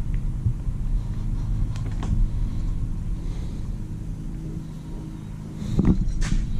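A steady low mechanical hum, with a few light ticks and two sharper knocks near the end.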